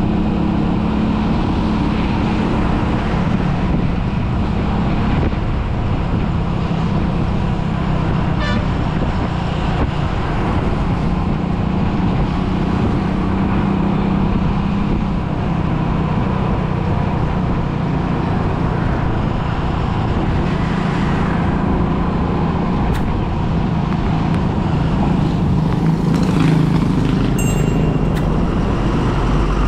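Steady road traffic noise heard while travelling along a busy road: vehicle engine and tyre noise running continuously, with a short high tone near the end.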